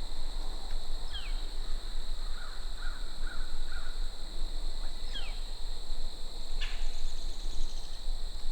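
A crow cawing, a few short calls spread out, with some softer bird chirps between them over a steady high-pitched hiss.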